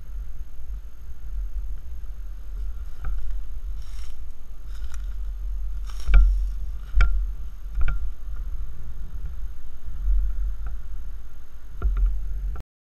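Wind rumble and road noise from a moving pickup truck, heard through a camera mounted on its front bumper, with several sharp knocks, the loudest about six seconds in. The sound cuts off abruptly just before the end.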